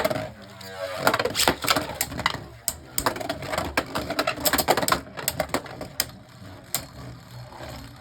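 Beyblade Burst tops (Dullahan D5 against Demise Dullahan) spinning and clashing in a plastic stadium, with many sharp, irregular clacks as they collide.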